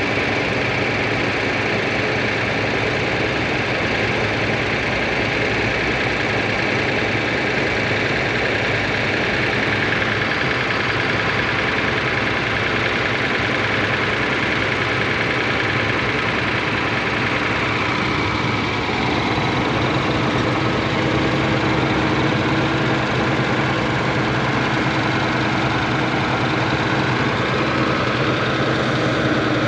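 Bus diesel engine idling steadily, growing a little louder about two-thirds of the way through.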